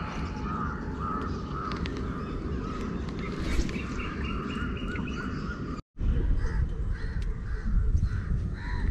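Crows cawing over and over, a run of short arched calls, over a low steady rumble. The sound cuts out for an instant about six seconds in.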